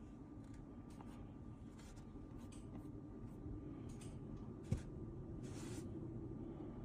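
Faint room tone with a steady low hum, broken by soft brushing and rustling sounds of hands handling the device, and one sharp click about two-thirds of the way through.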